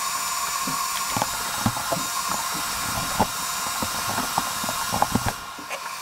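Steady hiss with a faint high whine, over scattered small clicks and taps of hands working on the burner's wiring with tools.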